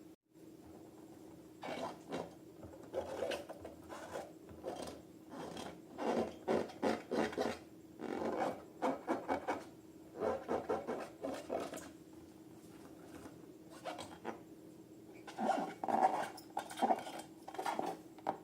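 Slime being worked by hand: irregular bursts of sticky squishing and rubbing, in clusters of quick strokes, over a faint steady hum.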